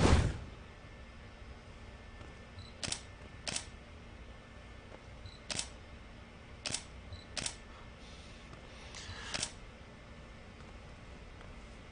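DSLR camera shutter firing single shots: six sharp clicks at uneven intervals, after a brief thump right at the start.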